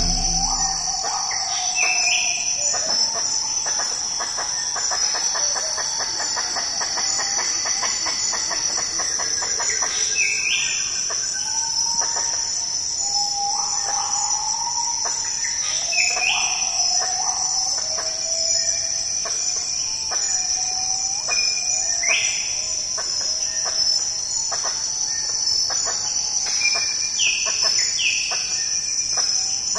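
Tropical forest ambience: a steady high-pitched drone of insects, with a bird calling over it in short phrases of sliding notes that recur every few seconds.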